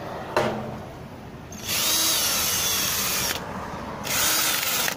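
Ryobi cordless drill spinning a brass wire wheel brush against a stainless steel thermos, scrubbing off its powder coating. A click about half a second in, then the drill runs for nearly two seconds with its pitch wavering, stops briefly, and runs again near the end.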